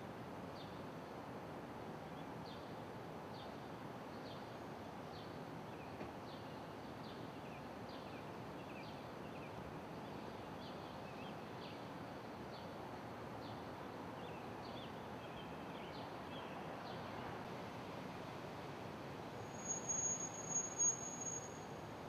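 Outdoor street ambience: a steady wash of distant traffic, with a bird chirping about once a second for most of the time. Near the end comes a brief high whistle, the loudest sound.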